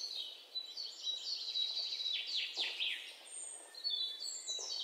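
Small birds chirping and calling, with many overlapping high chirps and a run of quick falling notes around the middle.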